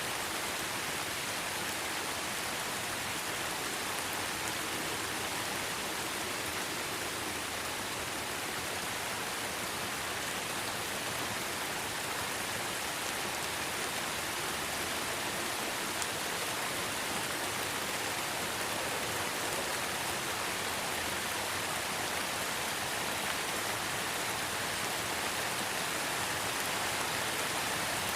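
Steady rain falling, a constant even hiss with a few faint drop ticks.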